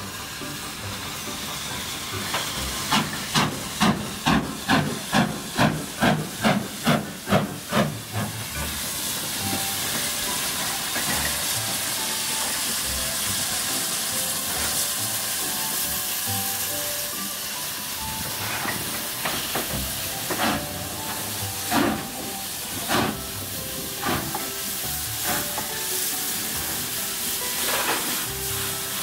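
Steam tank locomotive No. 85 working slowly: about a dozen sharp exhaust chuffs, roughly two and a half a second, then a steady hiss of steam. A few sharp clanks and knocks come in the later part.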